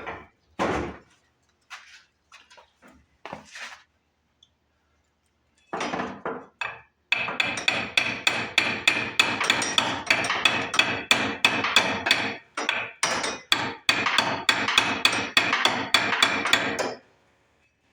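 Rapid metal-on-metal hammer blows, about four or five a second for some ten seconds after a few scattered knocks, as the stuck crankshaft pulley is driven off a 17.5 HP Briggs & Stratton engine.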